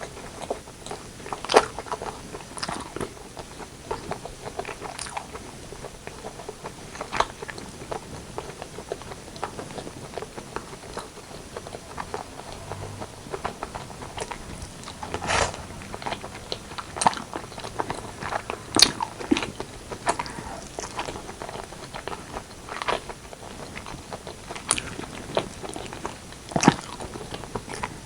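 Close-miked eating: chewing and biting into braised pork leg and white rice, with sharp clicks every few seconds over a soft steady chewing noise.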